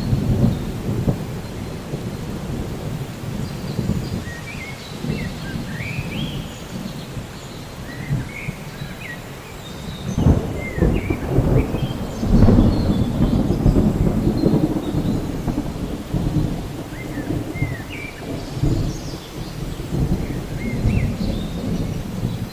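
Steady rain with low rolling thunder that swells about halfway through. Short high chirps come and go above it.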